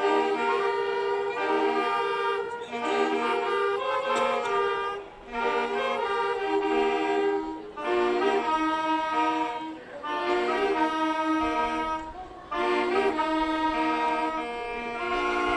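Saxophone ensemble of alto and tenor saxophones playing a melody in harmony, in sustained phrases broken by brief pauses every few seconds.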